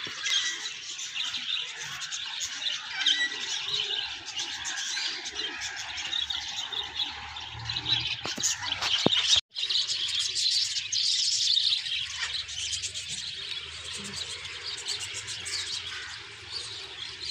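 Many birds chirping and calling over one another in a dense, continuous chorus of short high calls. The sound drops out briefly about halfway through.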